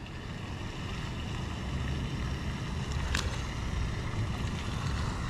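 Wind buffeting the microphone with a steady low rumble, and a single sharp click about three seconds in.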